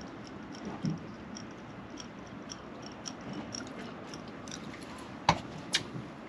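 Spinning fishing reel being wound to retrieve a lure: a steady run of light clicking ticks, with two sharp clicks a moment apart about five seconds in.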